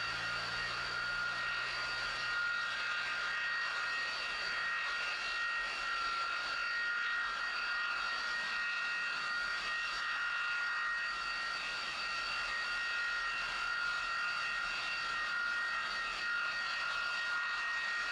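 Jet engine of a CSX rail jet snowblower running steadily: a constant high-pitched turbine whine with several tones over a rushing blast, blowing snow off the track.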